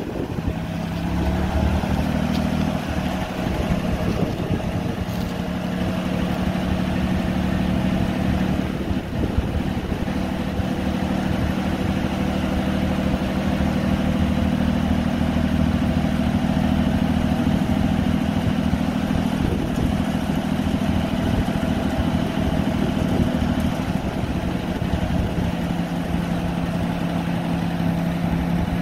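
1967 GMC grain truck's engine running steadily while the hydraulic hoist raises the dump box. The engine note steps up about a second in, holds steady, and shifts slightly a few seconds before the end.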